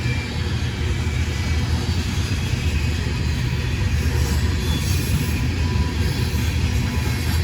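Train passing, a steady low rumble that grows slightly louder.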